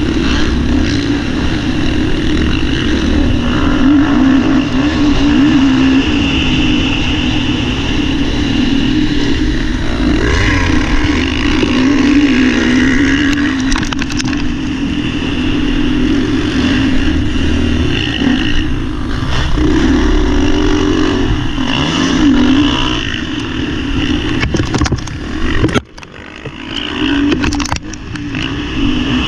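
Motocross bike engine running hard under race throttle, heard close-up from the bike's onboard camera, its pitch rising and falling as the throttle opens and closes. About 26 seconds in the engine sound drops off sharply for a moment, then comes back up.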